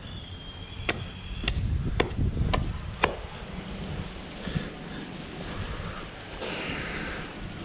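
Five sharp strikes on wood, about half a second apart, then they stop, over wind rumbling on the microphone.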